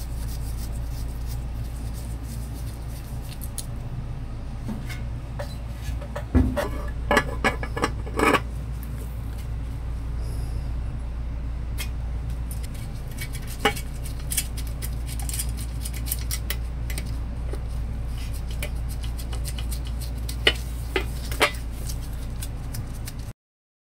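Socket wrench and metal fasteners clinking and tapping while nuts and lock washers are tightened on a bathroom exhaust fan motor's metal mounting plate. A quick run of clicks comes about six to eight seconds in, and single taps follow later, over a steady low hum.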